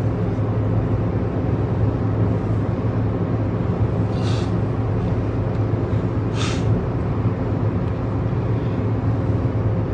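Steady road and engine noise inside a moving car's cabin, a low hum with an even rush over it, and two brief hisses, about four seconds in and again two seconds later.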